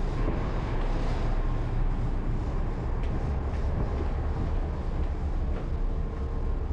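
Steady low rumble of a passenger ferry's engine running, heard aboard, with a faint steady hum over it.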